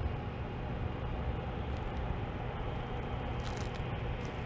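Diesel locomotive engines idling: a steady low rumble.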